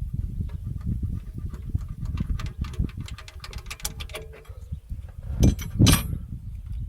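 Irregular light clicks and taps of tools and engine parts being handled, with two louder knocks about five and a half and six seconds in, over a low rumble.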